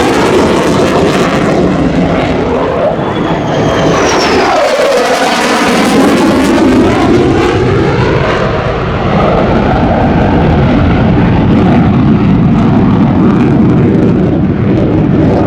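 F-35A Lightning II fighter's F135 turbofan engine, loud jet noise as the aircraft flies by in a display pass, its sound sweeping in pitch with a falling whine about three seconds in.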